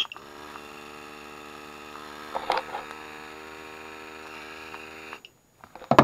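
A small electric motor humming steadily, with a few light handling knocks about two and a half seconds in. The hum cuts off abruptly about five seconds in.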